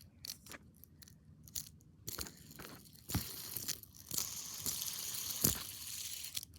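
Fidget spinner being handled and tried out: a series of light clicks and taps, then a steady high hiss with more clicks from about four seconds in.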